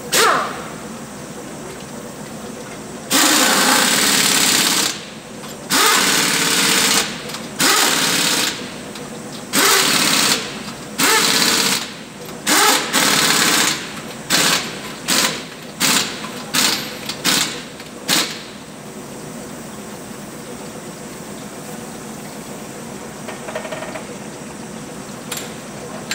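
Pneumatic impact wrench on a front wheel's lug nuts: about six runs of a second or so, then around eight short bursts in quick succession as the nuts are driven tight. A sharp knock comes first.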